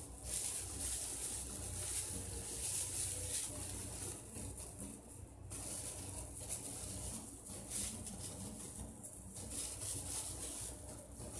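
Disposable plastic gloves crinkling as hands press potting soil around a succulent in a glass bowl terrarium. The rustling comes in irregular bursts with short pauses, over a low steady rumble.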